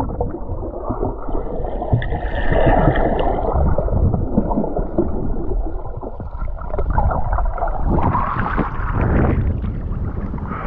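Seawater sloshing and gurgling, heard muffled through a camera microphone held under the water's surface.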